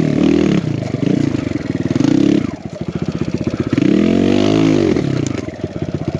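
Kawasaki KLX140 dirt bike with a 170cc big-bore kit, its single-cylinder four-stroke engine revving up and down under load on a steep trail climb. The throttle shuts about two and a half seconds in and the engine stutters at low revs, then picks up again about a second later.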